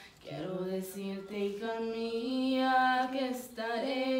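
A young woman singing a Spanish ballad unaccompanied: one slow phrase of long held notes that starts just after the beginning and trails off near the end.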